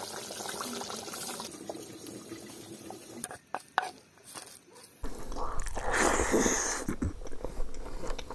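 Chicken curry bubbling and sputtering in a pot, then a metal spoon clicking and scraping as chopped vegetables and chillies are mixed. About five seconds in come louder wet, squelching sounds of curry and rice being mixed by hand.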